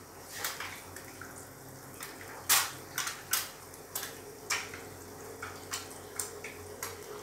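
Clear plastic bag of fresh spinach crinkling and rustling as a hand handles and opens it, a string of sharp crackles roughly every half second, the loudest a little past two seconds in.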